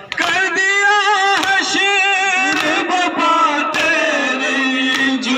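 A man sings a slow lament, chant-like with long wavering held notes, into a headset microphone through a portable amplifier speaker. Sharp thumps come roughly once a second under the voice, from the mourners beating their chests.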